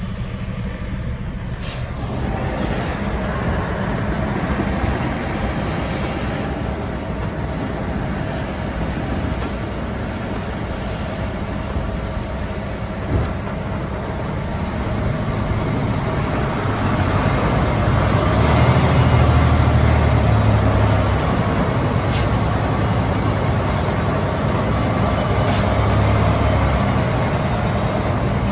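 Heavy diesel log truck engine running under load, heard from inside the cab, getting louder and heavier about two-thirds of the way through. A few brief sharp clicks cut in over it.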